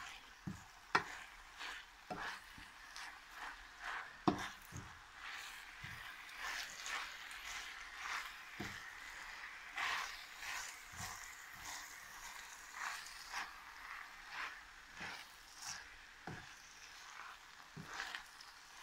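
Wooden spoon stirring fresh spinach and arborio rice in a hot pan: irregular soft scrapes and knocks against the pan over a faint sizzle.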